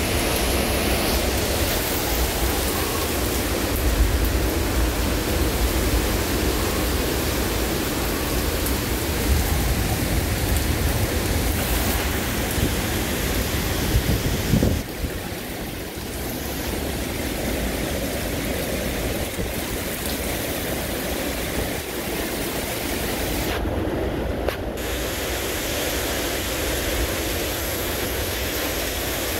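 Derecho storm wind with heavy driving rain, a steady loud rush, with gusts buffeting the microphone in low rumbles. The sound drops a little and changes character about halfway through.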